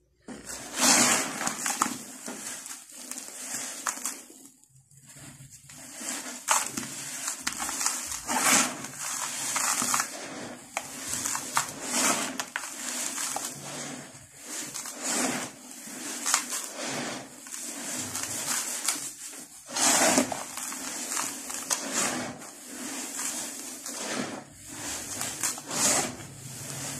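Dry, gritty dirt crushed and crumbled by hand, with irregular crisp crunches and a brief lull a few seconds in.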